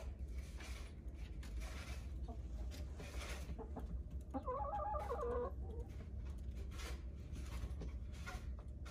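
Backyard hens clucking softly inside their coop, with one longer, clearer call about halfway through.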